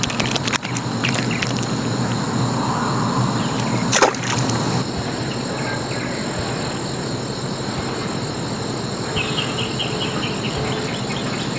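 Insects droning in a steady chorus of high, even tones over a constant outdoor hiss. There are a few handling clicks at the start, a sharp click about four seconds in, and a short rapid trill of pulses near the end.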